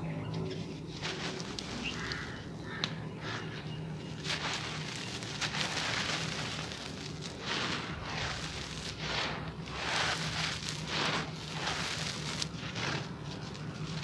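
Dry, crumbly reddish earth being broken apart by hand and poured from cupped hands onto gritty ground: a crackling crumble followed by repeated hissing pours of powder and small grains. A steady low hum runs underneath.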